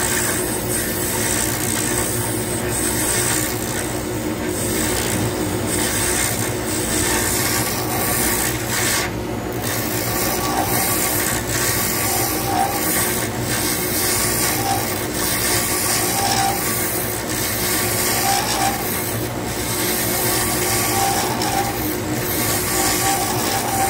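Wood lathe running while a hand-held turning tool cuts a spinning resin pen blank: a steady motor hum under continuous rough scraping from the cut.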